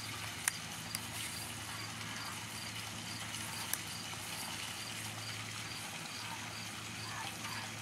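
Oracle cards being handled and laid down, giving a few sharp clicks, over a steady low hum and background hiss. A faint high chirp repeats about twice a second throughout.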